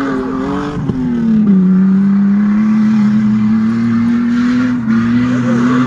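Off-road race vehicle's engine revving hard under load, its pitch high and held, dropping about a second and a half in and then holding steady with a brief dip near the end.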